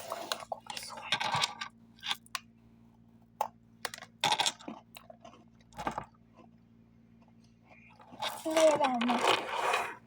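Crunching and chewing of a crumble cookie close to the microphone: irregular crackles with gaps between them, and a denser run of crunching near the end.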